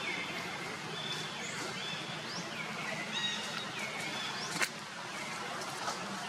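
High chirping animal calls, repeated over and over: some slide down and level off, others sweep quickly upward, over a steady outdoor background hiss. There is one sharp click about four and a half seconds in.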